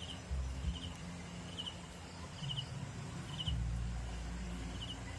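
A cricket chirping in short three-pulse chirps, about one every three-quarters of a second, over a low steady hum and rumble with a few bumps.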